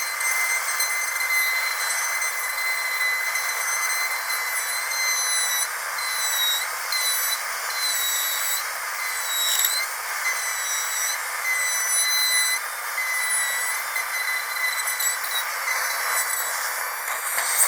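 Dentist's drill running with a steady high-pitched whine over a hiss, the pitch dipping briefly a few times.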